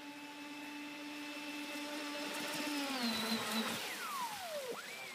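Electric motor of a Volantex Vector SV27 RC speedboat whining steadily at speed, dropping in pitch about three seconds in as the throttle is eased. Near the end the whine falls steeply, then climbs sharply again as the throttle is opened.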